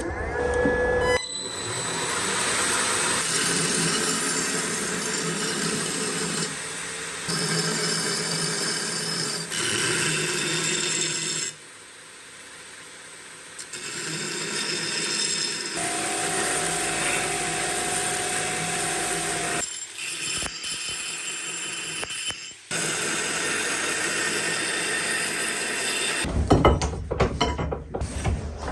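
A power tool working the rusty steel of a meat cleaver, in a run of short stretches that start and stop abruptly, with a steady whine in one of them.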